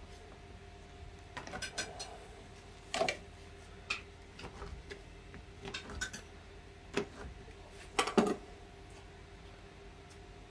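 Kitchen knife cutting tablets of soft turrón into small pieces on a wooden tabletop: scattered, irregular knocks and clicks of the blade against the table, the sharpest cluster toward the end.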